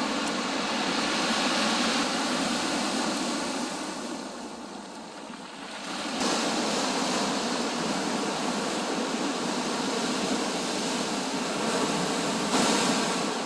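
Sea surf: waves washing and breaking on the shore in a steady rush of noise. The rush eases about four seconds in, then a fresh wave breaks suddenly about six seconds in and another near the end.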